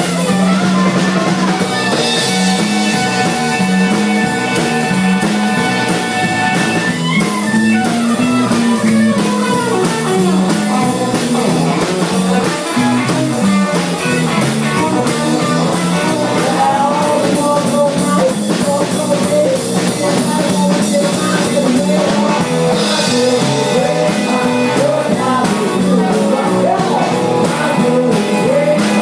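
Live band playing: electric guitars over a small stand-up drum kit of snare, floor tom and cymbal, keeping a steady beat.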